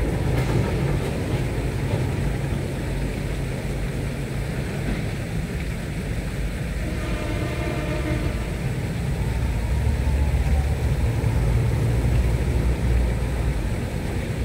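Small boat's engine running steadily, a low rumble that grows a little louder in the second half.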